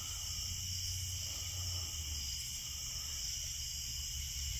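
Steady chorus of night insects such as crickets, several high-pitched tones holding unbroken, over a low steady hum.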